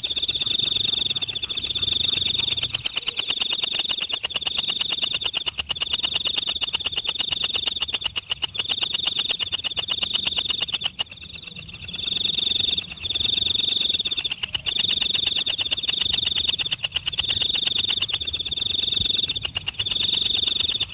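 Forest insect calling continuously: a loud, high-pitched rapid pulsing trill, delivered in phrases about a second long with short breaks between them, and a brief drop in level about halfway through.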